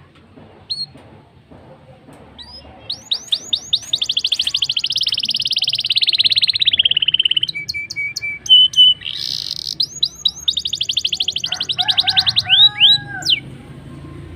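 Black-throated canary (blackthroat) singing a long rolling song: very fast trills of rapidly repeated high notes, broken midway by a short pause with a few single notes, then a second long trill and a few downward-sliding whistles near the end.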